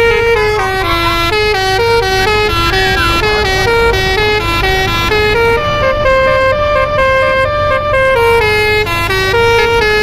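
A bus 'telolet' multi-tone air horn playing a running tune of stepped notes, each held for a fraction of a second. A steady low rumble runs underneath.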